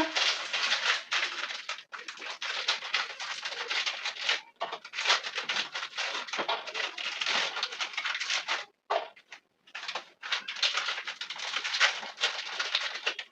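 Plastic Oreo packets crinkling and crackling as they are handled and torn open, a dense irregular crackle with a couple of short pauses.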